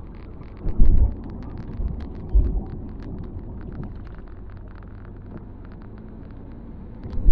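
Inside the cabin of a 2001 Ford Fairmont AU on the move on a wet road: steady engine and tyre rumble, with low thumps about a second in and again about two and a half seconds in, and a scatter of light ticks throughout.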